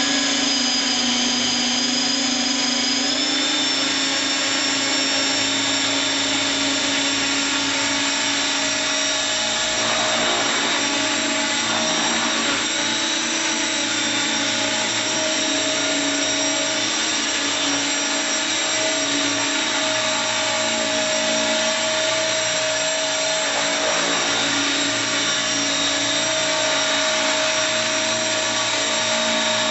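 Thunder Tiger Innovator MD530 radio-controlled electric helicopter running: a steady high motor and gear whine with the rotor's hum beneath. About three seconds in, the pitch steps up as the rotor spools up to speed, then holds steady.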